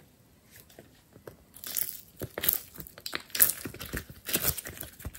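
Glossy slime being peeled out of a thin, flexible plastic mold and squeezed by hand: a dense run of sticky crackles and clicks that starts about a second and a half in.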